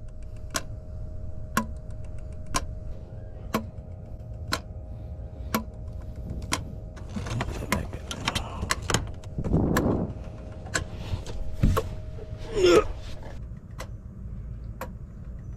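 Canister shutoff valve solenoid on a 2013 Hyundai Santa Fe's EVAP system clicking open and shut about once a second while it is cycled by a scan-tool actuation test. The regular clicking shows the valve is working. There is some rustling, handling noise between the clicks in the middle.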